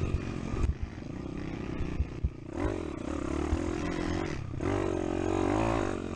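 Pitbike's small single-cylinder four-stroke engine heard from on the bike, revving up and falling back as the throttle is opened and shut over rough dirt. A few sharp knocks from the bike come in the first couple of seconds.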